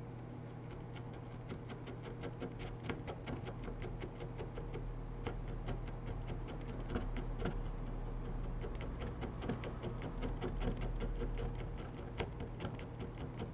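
Small hand tools clicking and scratching against a smartphone's broken glass and frame during disassembly, a dense run of irregular sharp clicks that grows busier toward the middle.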